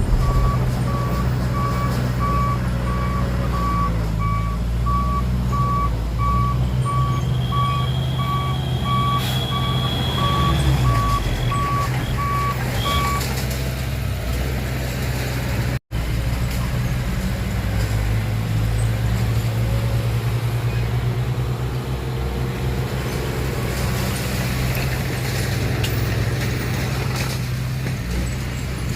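Dump truck's diesel engine running steadily while its reversing alarm beeps at an even pace for roughly the first half. A high squeal lasts a few seconds during the beeping, and after a brief dropout the engine runs on without the alarm.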